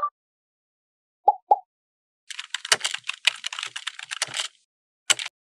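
Computer keyboard typing sound effect: a rapid run of keystrokes lasting about two seconds, preceded by two short blips and followed by a single click near the end.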